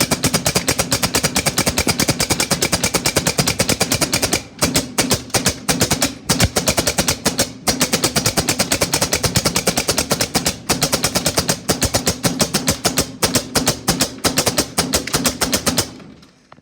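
Staple gun firing in rapid repeated shots, several a second, into a Rubik's cube, with a couple of brief pauses, stopping shortly before the end.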